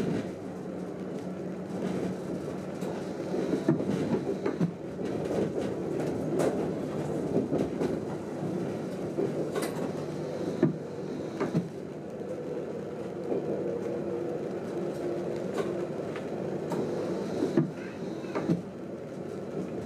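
Train running, heard from inside the driver's cab: a steady low hum with a pitched drone that shifts now and then, and scattered sharp clicks and knocks.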